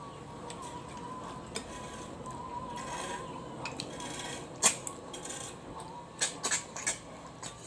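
Scattered clicks and taps of snail shells and a utensil against dishes as snails are picked out and eaten, with one sharp knock about halfway through and a quick run of clicks near the end.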